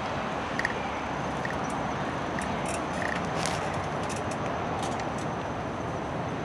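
Outdoor park ambience: a steady noisy hiss and rumble, with short high chirps about once a second and a few scattered clicks.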